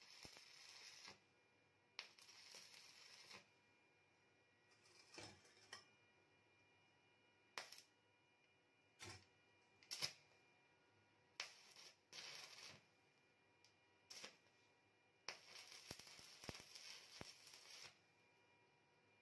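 Electric arc welding in short runs: about nine separate bursts of crackling hiss, each half a second to a couple of seconds long, with the longest near the end. The bursts are tack welds joining the steel frame of a homemade drill press.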